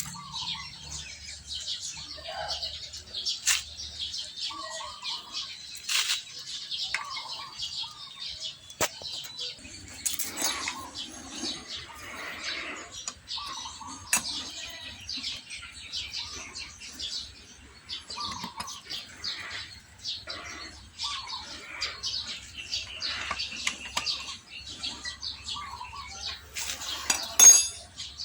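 Small metal clicks and taps of hand work on a motorcycle engine as the cam chain tensioner and its gasket are fitted, with birds chirping every second or two. A sharp metallic clink near the end is the loudest sound.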